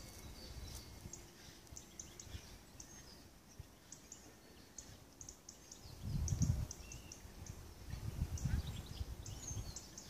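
European goldfinches twittering in the trees: quick, scattered high chirps throughout. Low rumbling on the microphone about six seconds in and again around eight to nine seconds.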